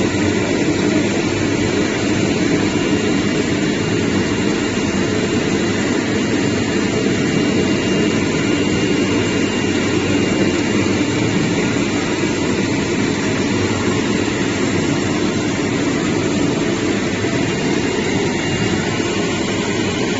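CNC router with an oscillating knife running steadily, cutting cardboard: a constant machine noise with a faint high tone through it.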